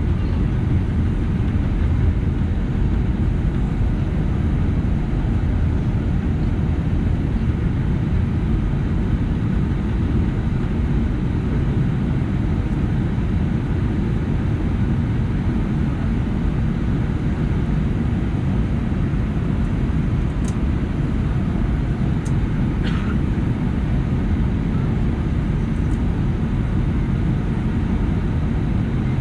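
Cabin noise of an Airbus A319 taxiing: a steady low rumble from its CFM56 engines at idle and the wheels rolling over the taxiway.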